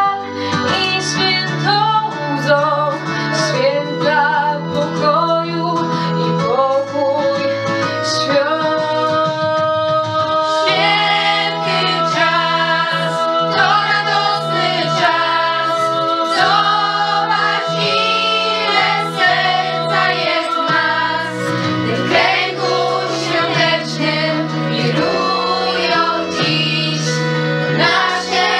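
A girls' vocal group singing a Christmas song over instrumental accompaniment. A lead voice at the microphone carries it at first, and the rest of the group joins in about ten seconds in.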